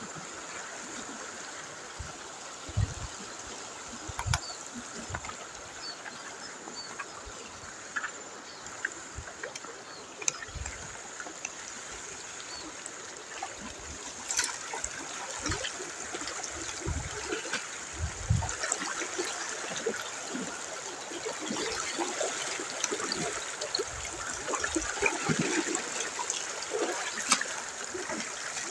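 River water flowing and trickling, with scattered clicks and a few short low thumps.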